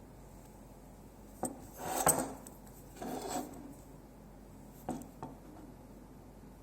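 A small metal part handled by hand: a sharp click, two scraping rubs, then two lighter clicks. The part is a sandblasted Mazda RX-8 steering universal joint.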